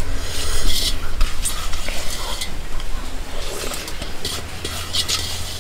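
Fingers scraping and gathering leftover rice on a plate, with close-up chewing, in irregular short crackly bursts.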